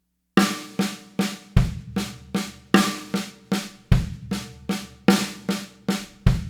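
Snare drum and bass drum playing a slow, even six-stroke roll pattern: right, left, left on the snare, a bass drum kick replacing the fourth stroke, then right, left, repeated. The first note of each group of six is accented.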